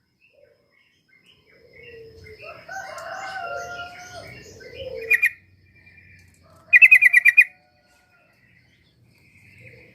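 Yellow-vented bulbul (trucuk) chattering and warbling, with a rapid loud run of about seven notes about seven seconds in.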